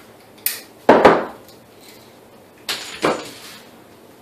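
Two pairs of sharp clacks from a piston and its wrist pin being handled and set down on a steel diamond-plate bench top, the second knock of each pair the loudest.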